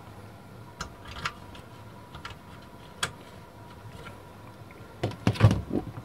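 Small clicks and light taps from a flat ribbon cable being handled and plugged into a circuit-board connector, with a short cluster of louder knocks and clatter about five seconds in.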